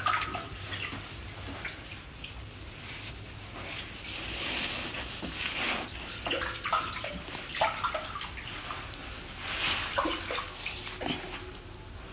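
Water splashing and sloshing at the bottom of a well as a person moves through it, in uneven surges, with scattered knocks and drips.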